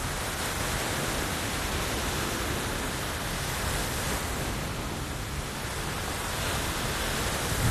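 Steady rushing noise of ocean surf breaking on the beach, mixed with wind on a phone's microphone.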